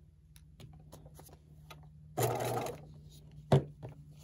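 Domestic sewing machine sewing long basting stitches (stitch length 5) through a paper foundation and fabric in one short burst about two seconds in, after light paper handling. A single sharp click follows about a second later.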